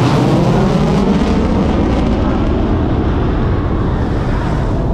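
Jet engine noise of a B-1 bomber just after a high-speed low pass: a loud, steady rumble whose pitch slowly falls as the bomber flies away, easing slightly toward the end.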